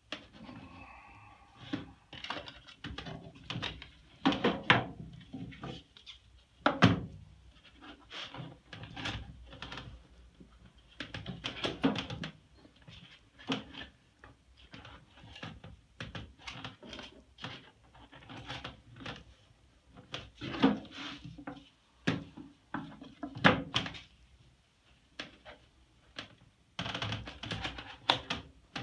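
White PVC plastic clips of an embroidery frame being pressed and snapped onto the frame's edges over nickel wire mesh on a plywood bench: irregular plastic clicks and knocks with handling noise between them.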